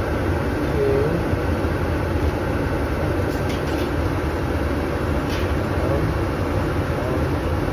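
Gas furnace circulating blower motor running steadily right after power is applied to the furnace.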